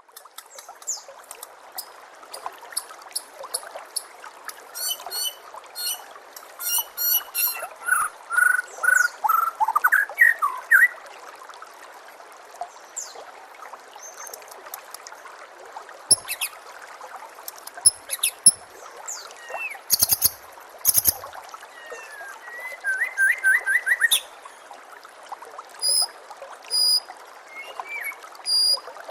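White-rumped shama (murai batu) singing a varied run of whistles, trills and rapid repeated notes, with a few sharp clicks about halfway through, over a steady trickle of running water.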